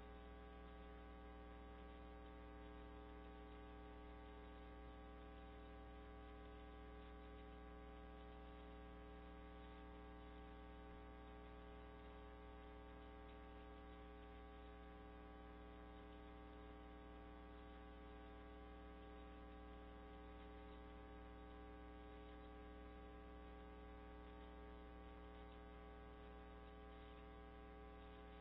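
Near silence with a faint, steady electrical mains hum and its stack of overtones.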